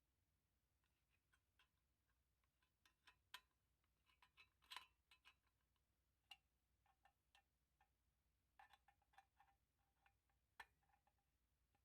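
Faint, scattered clicks and light clinks of metal parts and tools being handled while a microwave magnetron is taken apart, a few at a time, some with a short ring.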